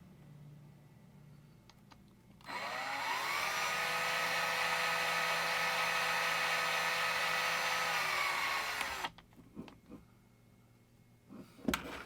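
Small electric drill spinning up, running steadily for about six seconds and winding down, while drilling out the rivets of a diecast car's base. A few sharp knocks follow near the end as parts are handled.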